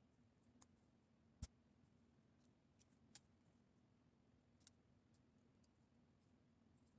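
Plastic Lego pieces clicking as they are handled and snapped together: about five sparse, sharp clicks, the loudest about a second and a half in.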